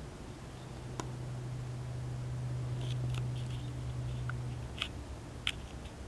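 Indoor room tone: a steady low hum that cuts off about three-quarters of the way in, with a few faint sharp clicks and ticks.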